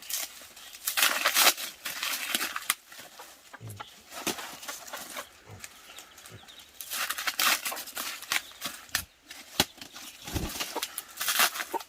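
Chickens clucking amid repeated bursts of rustling and scratching noise.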